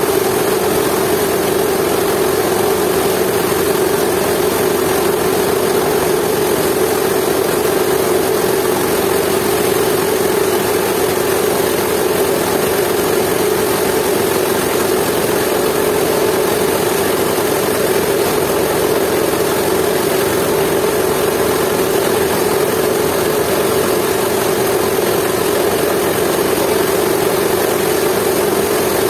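Jiangdong 8 hp single-cylinder diesel engine running steadily, belt-driving a dry-coffee-bean huller.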